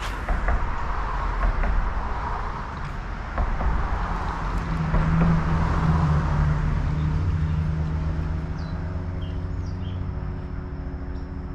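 Steady outdoor rushing noise with low wind rumble on the microphone. About four seconds in, a motor vehicle's engine drone comes in and holds steady to the end. A few short bird chirps sound near the end.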